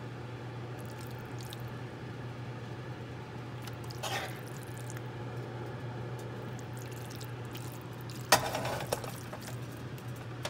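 Metal spoon stirring and scooping thick, saucy ground-beef sloppy joe mixture in a nonstick frying pan, a soft wet squishing. A little past eight seconds the spoon knocks sharply against the pan, the loudest sound, with a lighter knock just after.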